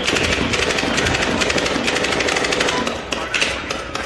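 Machine gun firing in long, rapid automatic bursts, the shots running together into a dense rattle that eases briefly near the end.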